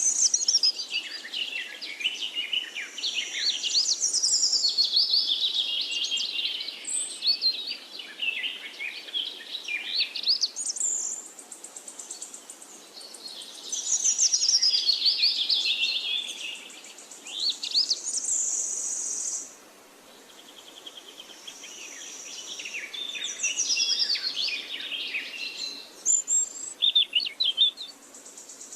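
Songbirds singing in rapid runs of varied, quickly sliding notes, phrases bunched with short lulls between them. A high steady buzz comes and goes behind the song.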